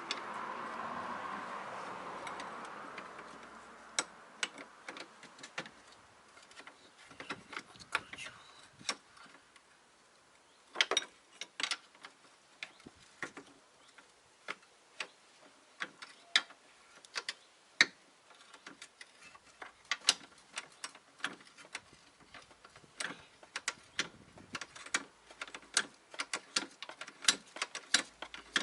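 Irregular sharp metallic clicks and taps, some in quick runs, from hand tools and metal parts being worked during a brake repair. A soft rustle in the first few seconds.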